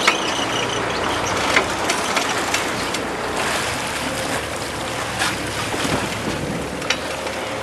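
Wind and sea noise on a sport-fishing boat with its engine running, with a few short knocks. A faint steady hum comes in about halfway through.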